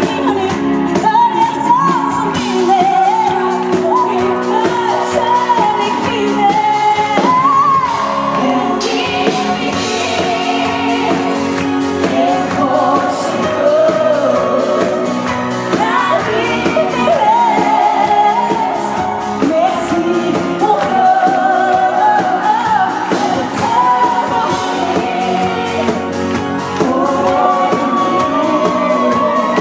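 Live pop song: a lead singer on microphone sings a continuous melody over loud backing music.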